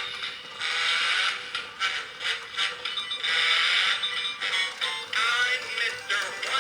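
Gemmy animated snowman playing its built-in song through a small speaker, thin and with almost no bass.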